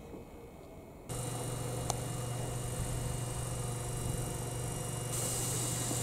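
Steady electrical hum with a hiss from a stationary electric train's onboard equipment, cutting in suddenly about a second in, with a single click about two seconds in.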